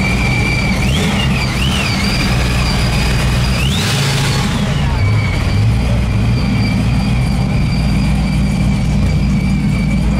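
Car engine idling and rolling slowly, a steady low rumble. Over it runs a thin, steady high-pitched whine that wavers twice early on, and about four seconds in a short burst of hiss rises and fades.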